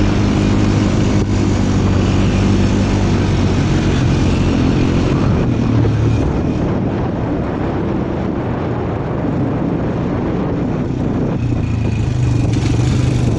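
Small off-road vehicle engine running under way, with its note rising and falling as the throttle changes. It eases to a steadier, slightly quieter note about halfway through and picks up again near the end.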